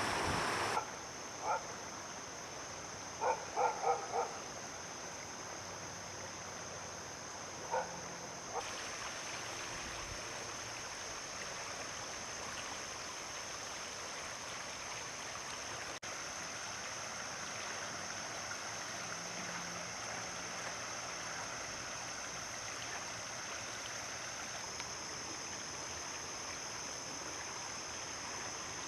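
Floodwater of a swollen, overflowing creek rushing steadily. A few short barks come in the first nine seconds, four of them in quick succession at about three to four seconds in.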